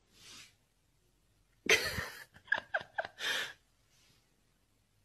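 A person's sharp breathy gasp, then a quick run of short laughs and a breathy exhale.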